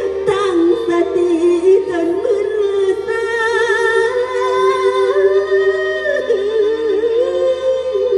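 Live mor lam music: a singer's ornamented, wavering vocal line over sustained, droning accompaniment tones.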